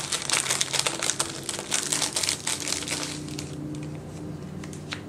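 Plastic sticker sleeves crinkling as sheets are pulled out of them, a dense run of rustling that dies down about three seconds in, followed by a few soft clicks of paper being handled.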